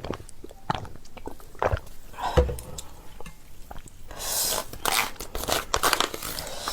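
Close-miked eating of pasta: biting and wet chewing, a string of short mouth smacks and clicks, with a longer, noisier stretch of chewing about four seconds in.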